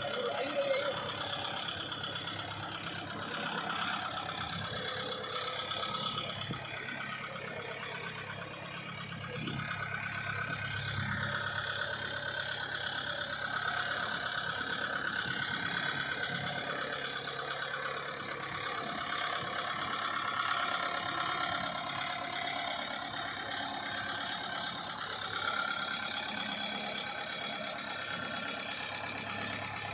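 Kubota MU5501 4WD tractor's four-cylinder diesel engine running steadily at low revs as the tractor drives slowly forward.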